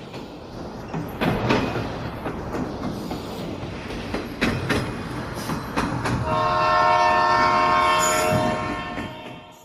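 Train running on the rails, a rumble with irregular wheel clacks, then a long train horn blast from about six seconds in that holds for around three seconds and fades out near the end.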